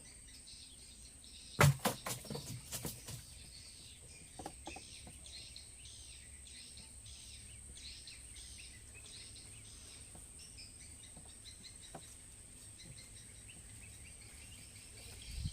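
Insects chirring in regular, even pulses with a steady high-pitched whine above them. A short clatter of sharp knocks comes about two seconds in.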